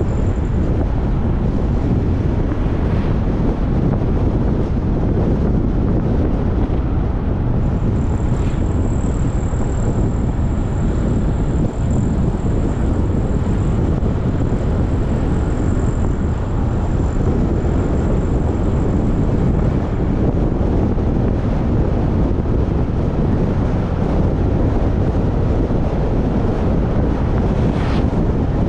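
Steady wind buffeting a moving camera's microphone, over the low rumble of a vehicle travelling along a paved road.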